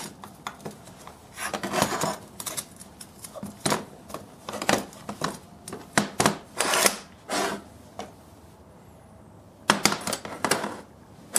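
Spring-loaded folding motorcycle footpegs and their metal mounting brackets clicking and clacking as they are handled and set down on a steel workbench: a run of sharp, uneven knocks, with a short lull before a last cluster of clacks.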